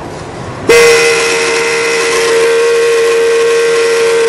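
Buick Century's heater/AC blower motor running and very noisy: a rush of air, then about a second in a loud, steady whistling squeal starts and holds. This is the noise of a failing blower motor, not debris in the fan, and the motor is being replaced for it.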